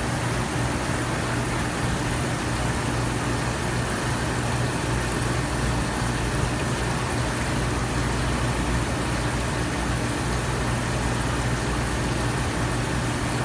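Steady electric hum of aquarium pumps with an even hiss of circulating water, unchanging throughout.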